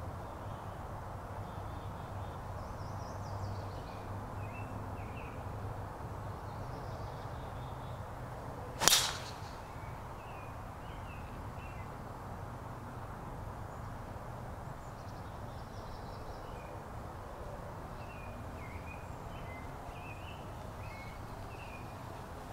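A golf club striking a golf ball: one sharp crack about nine seconds in, against steady outdoor background noise with faint birds chirping.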